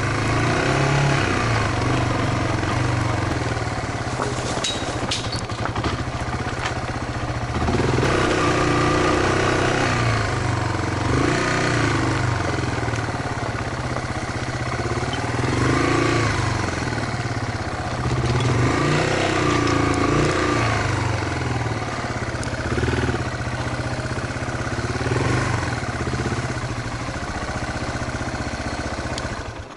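Yamaha Serow single-cylinder four-stroke trail bike being ridden, its engine running throughout and rising and falling in pitch every few seconds as it is throttled up and eased off.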